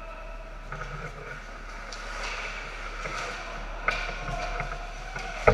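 Ice hockey play close to the goal: skate blades scraping and carving on the ice, with sharp clicks of stick and puck, the strongest near the end.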